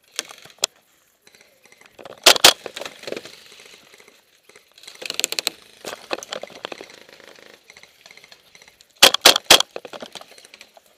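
Gas blowback airsoft pistol (Tokyo Marui Hi-Capa) firing sharp, loud shots in quick groups: a pair about two seconds in and three rapid shots about nine seconds in. Scuffing and rustling of movement lies between the groups.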